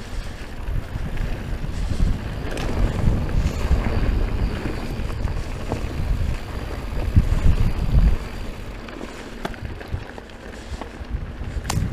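Strong wind buffeting the microphone in a low rumble, over a Santa Cruz full-suspension mountain bike rolling down a rocky dirt trail, with scattered clicks and rattles. The rumble swells for a moment a little past the middle.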